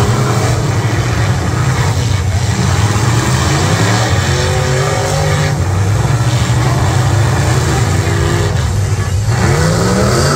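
Several demolition-derby cars' V8 engines running hard and revving, their pitch rising and falling repeatedly as the cars push and ram into each other.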